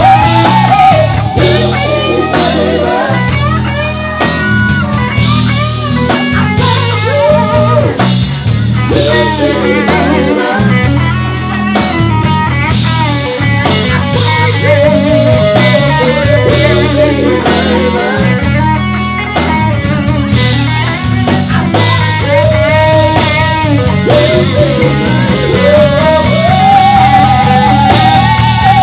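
Live blues band playing: electric guitars, bass guitar and drum kit, with a lead line of long bending notes with vibrato over the steady groove.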